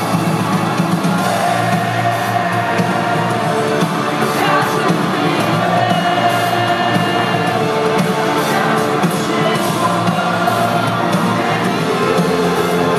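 Live rock band playing loud and without a break: distorted electric guitar over bass and drums, heard through a phone microphone in the audience, with singing.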